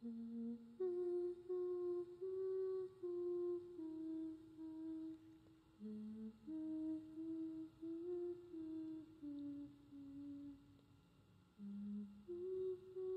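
A woman softly humming a slow, simple tune, one held note after another. There is a short pause near the end before the humming resumes.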